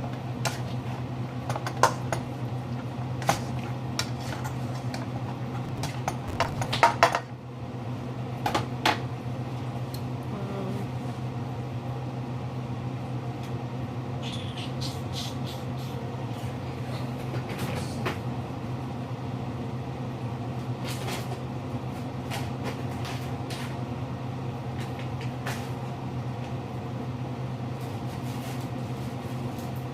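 Kitchen sounds while shrimp cook: a steady low appliance hum, with a few knocks and clinks of cookware and utensils in the first nine seconds, the loudest cluster about seven seconds in, then only scattered faint clicks.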